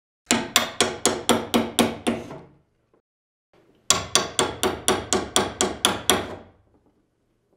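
Hammer banging on a wooden plywood crate in two quick runs of blows, about four a second, with a pause of over a second between them.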